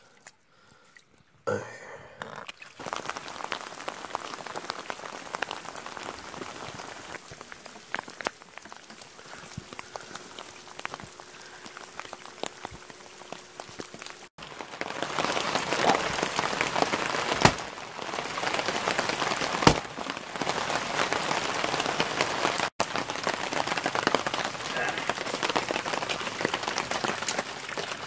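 Steady rain pattering, louder from about halfway through.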